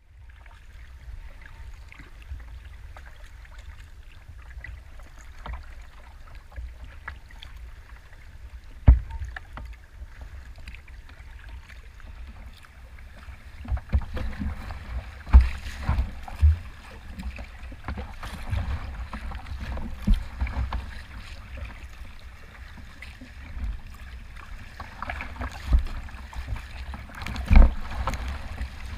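Sea kayak pushing through choppy water: continuous low wind rumble and water rushing and splashing along the hull. Several sharp thumps as waves slap the bow, the loudest about 15 s in and near the end.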